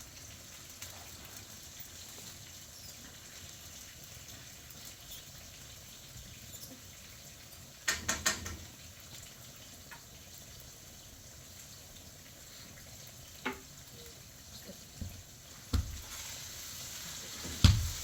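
Scattered knocks and clatters over a faint hiss: a quick cluster about eight seconds in and a few single knocks near the end. The hiss grows louder in the last couple of seconds, the sizzle of food starting to fry.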